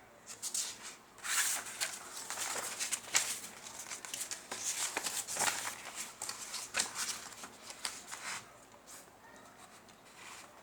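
Computer keyboard being typed on: an irregular run of quick clicks and taps that stops about eight and a half seconds in.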